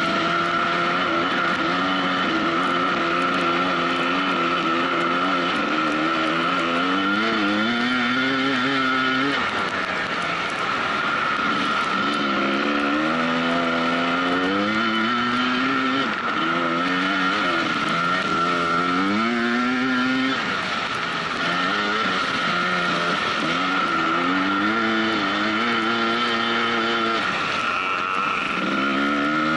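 Dirt bike engine under way, the revs climbing and then falling about five times as the throttle is worked, with a steady high tone running underneath.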